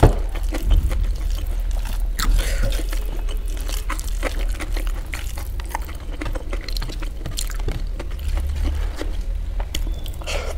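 Fingers squishing and mixing fried rice with Manchurian gravy on a steel plate, with irregular small clicks and wet squelches, and mouth-close chewing. A low steady hum runs underneath.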